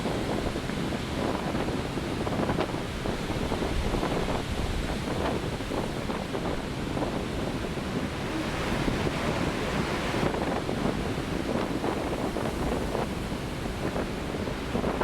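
Heavy winter storm surf crashing and rushing, with wind buffeting the microphone. A brighter hiss of rushing water swells up about eight to ten seconds in.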